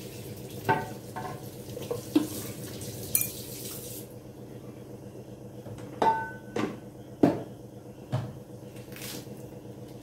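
Metal kitchen utensils clinking and knocking against pots and dishes: about half a dozen sharp, irregular strikes, some ringing briefly. Underneath is a steady low hum, and a faint hiss fades out about four seconds in.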